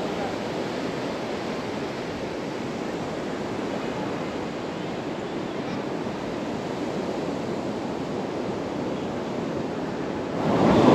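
Steady wash of sea surf and wind on a beach, turning suddenly much louder just before the end.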